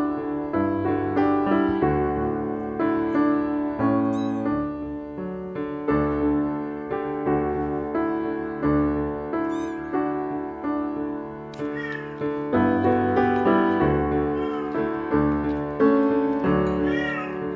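Kittens meowing, short high-pitched cries several times, over background music with piano-like held notes.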